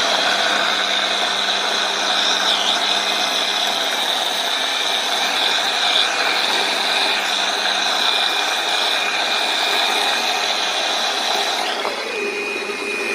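Electric blender running steadily at high speed, blending chopped fruit into juice, with a constant high whine over the motor noise. The sound drops a little near the end.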